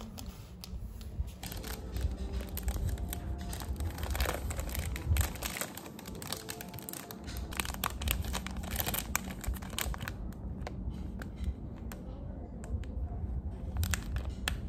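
Thin plastic sandwich wrapper being torn open and crinkled by hand: a dense run of crackles and rustles that thins out near the end.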